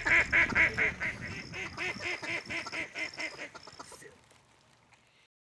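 Duck quacking in a rapid, even run of about four quacks a second that grows fainter and dies away after about three and a half seconds.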